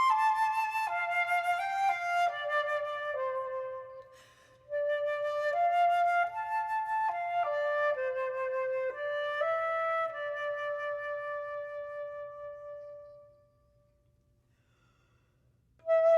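Unaccompanied flute playing a slow, chant-based melody: a descending line that settles on a low note, a short breath, then a phrase moving up and down in steps that ends on a long held note fading away, followed by a few seconds of silence before the next phrase begins at the very end.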